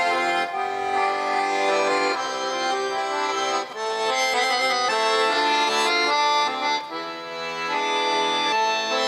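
Accordion playing the instrumental introduction to a Russian folk song: a continuous melody over held chords, with short breaks between phrases a little under four seconds in and again about seven seconds in.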